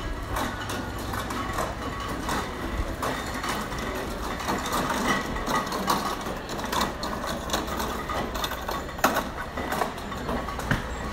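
Busy market-stall ambience: a steady low hum with frequent short clicks and clatter throughout.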